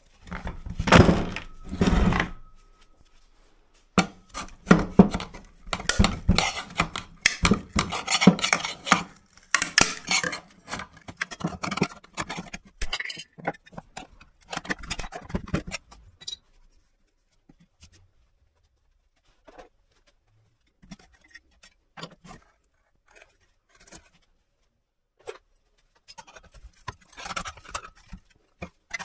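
Metal clinking, knocking and scraping as hand tools work on an electric water pump's metal parts to take it apart. Busy, tight clatter for about the first half, then only a few scattered clicks.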